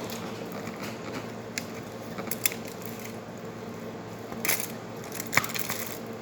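Eating sounds at a meal: scattered sharp clicks and clinks, the loudest about halfway and near the end, over a steady low hum.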